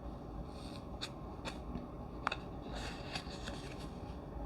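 Oracle cards being handled between readings: faint sliding of card stock with a few soft clicks as the next card is moved.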